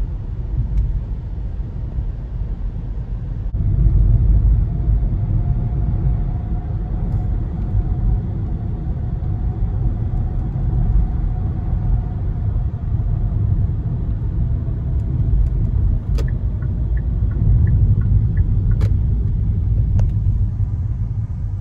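Steady low road rumble of a moving car heard from inside the cabin, with a faint whine through the middle and a few light clicks near the end.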